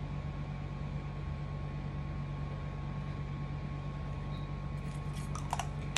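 Steady low electrical hum with hiss and a faint high tone, the background noise of the room. Near the end come a few small, faint clicks as a lipstick is handled.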